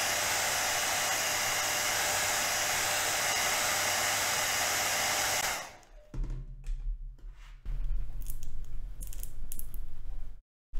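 Hot-air blower running steadily to soften the screen adhesive, switched off about halfway through. After it, a low hum with scattered scraping and clicks, then a sudden cut to silence near the end.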